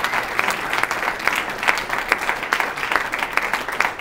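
Room full of people applauding, a steady patter of many hands clapping.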